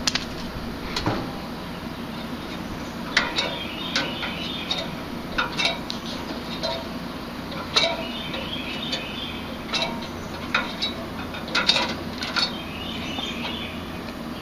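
Three-phase Lennox rooftop condensing unit running with a steady hum, over which come a dozen or so sharp metallic clicks and clinks at irregular intervals from metal tools or fittings being handled.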